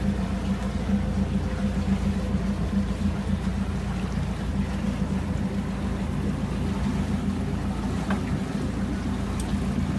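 Boat engine running steadily, a low even hum with a constant drone underneath.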